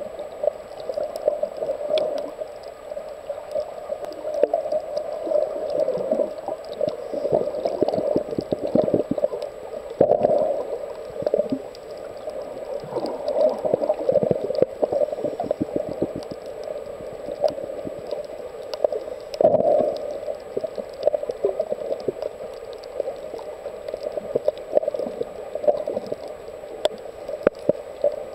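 Muffled underwater sound from a camera filming below the surface: continuous gurgling and sloshing of water, swelling and fading irregularly, with faint scattered clicks.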